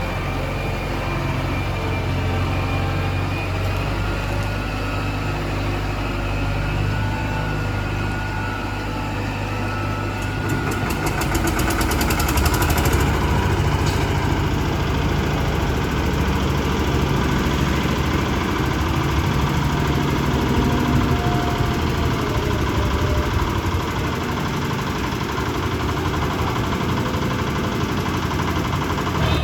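JCB 3DX backhoe loader's diesel engine running steadily, growing louder and rougher from about ten seconds in.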